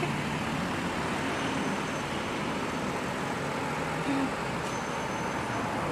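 Steady running of a road vehicle's engine with traffic noise, an even hum without horn blasts.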